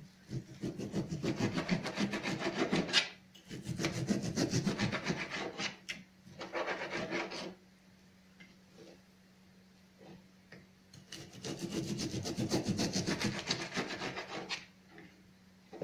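Kitchen knife sawing back and forth through partly frozen pork on a plastic cutting board, in four spells of rapid strokes, with a pause of a few seconds before the last spell.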